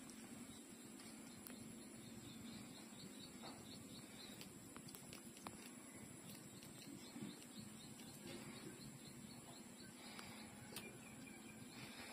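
Faint sucking and smacking of puppies nursing at their mother's teats, a scatter of small soft clicks, with faint high bird chirps repeating in the background for the first half or so.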